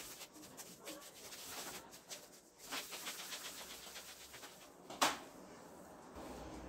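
Hands rolling balls of dough on a floured marble worktop: a faint, quick, rhythmic rubbing, with one sharp knock about five seconds in.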